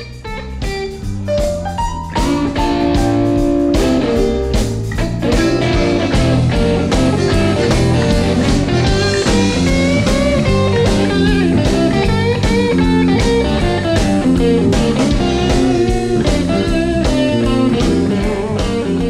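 Background music: blues-style electric guitar over a steady beat, filling out about two seconds in.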